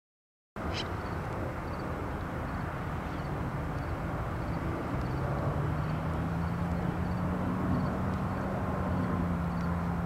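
Outdoor field ambience: a steady low rumble with a distant engine-like hum that steps up slightly in pitch about halfway through, starting abruptly about half a second in. Faint, evenly spaced high ticks sit above it.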